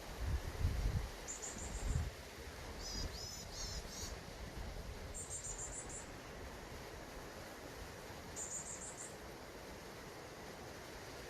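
A small songbird singing short, high, quickly repeated trilled phrases, one every two to three seconds. Low rumbling thumps sound in the first two seconds.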